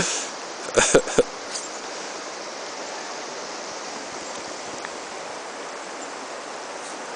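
Steady rush of flowing stream water, with a short cluster of sharp sounds about a second in.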